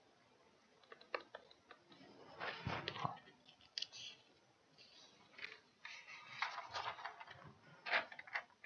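Faint taps and scratches of a stylus writing on a pen tablet, in irregular clusters, loudest about three seconds in and again near the end.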